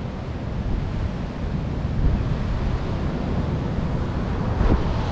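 Gusty tropical-storm wind buffeting the microphone over the steady noise of heavy surf breaking, with a stronger gust near the end.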